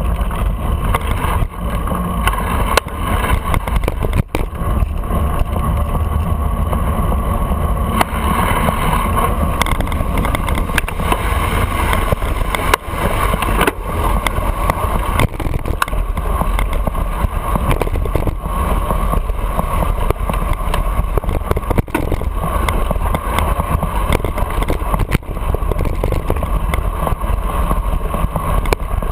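Wind rushing over the microphone of a camera mounted on a moving bicycle, mixed with the steady noise of city traffic. A few short, sharp knocks stand out now and then.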